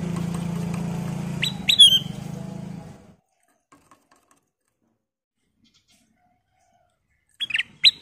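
Ruby-throated bulbul (kutilang emas) giving short, sharp chirps: two about a second and a half in, then a quick run of them near the end. A steady low hum runs under the first three seconds and stops.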